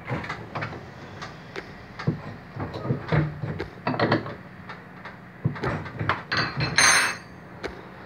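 Irregular clicks and knocks of a metal tool rod against the black plastic pulley and metal plate of a Brastemp Ative washing machine's transmission while the new gear set is being seated, with a short scraping rattle near the end.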